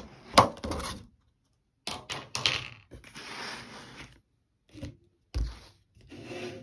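Clear plastic lid of a black plastic takeout tray being unsnapped and pulled off, in a series of sharp plastic crackles, clicks and scrapes, the loudest about half a second in. A short dull thump comes a little past five seconds as the tray is handled.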